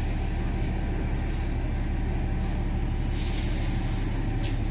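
Diesel locomotive idling at the platform, a steady low rumble, with a short hiss of released air about three seconds in.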